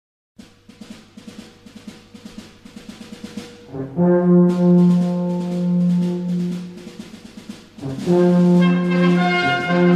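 Instrumental introduction of a patriotic march: a rhythmic drum passage for about three seconds, then a loud brass fanfare of held chords about four seconds in, which dips and swells again near eight seconds.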